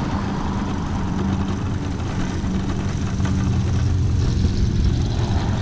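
Electric mobility scooter running along an asphalt road: a steady low motor drone over road noise, getting a little louder about four seconds in.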